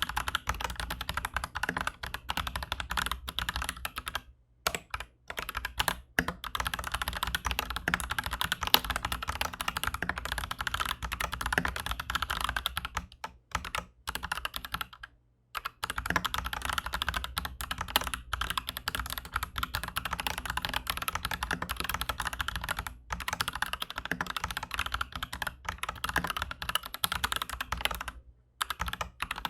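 Aflion AF82 75% mechanical keyboard with Aflion Shadow tactile switches in a steel plate, typed on quickly and continuously. There are a few brief pauses, the longest lasting about two seconds near the middle.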